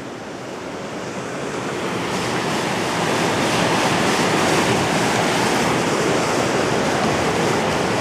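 River rapids rushing steadily, growing louder over the first three seconds and then holding steady.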